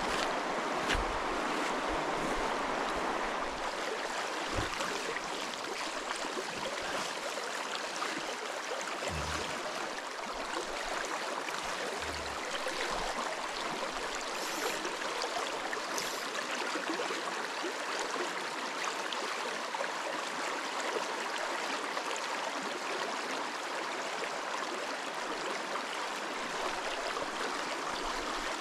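Shallow river riffle running fast over a stony bed: a steady rush of water, with a few crunches of footsteps on river stones in the first second.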